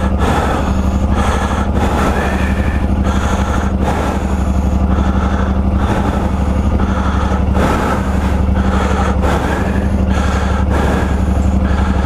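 Motorcycle engine running steadily, picked up by a mic wired into the rider's helmet, with a constant low hum and a faint pulse about twice a second.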